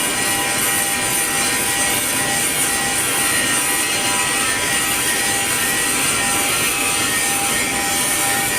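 Automatic pipeline welding machine at work: a steady arc hiss and crackle with a few faint constant tones under it.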